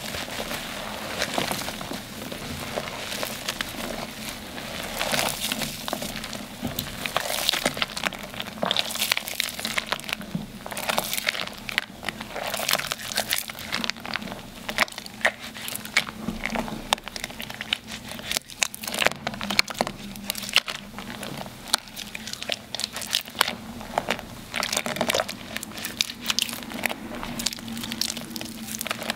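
Hands squeezing and kneading dyed gym chalk soaked in water, with dense, irregular wet crackling and crunching as the chalk crumbles into paste.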